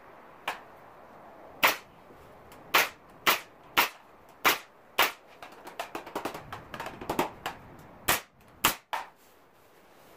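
Pneumatic nail gun firing nails into the wooden frame joints: about ten sharp shots at uneven intervals, with a run of lighter clicks and taps in the middle.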